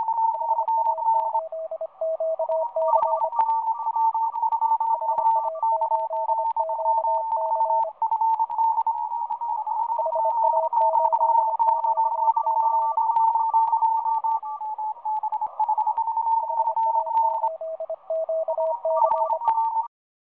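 Intro jingle: a simple melody of stepping notes in a thin, tinny, telephone-like tone, much like a ringtone. It cuts off suddenly near the end.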